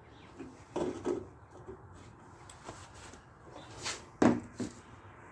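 A few separate knocks and clicks of hand tools and metal parts being handled during mower axle repair work. The loudest comes about four seconds in.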